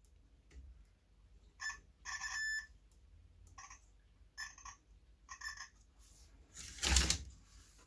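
Continuity tester beeping about five times in short bursts, one beep held longer, as the probes touch the repaired contacts of a G-scale track switch. Each beep means the rail circuit has continuity. A brief louder noise comes about seven seconds in.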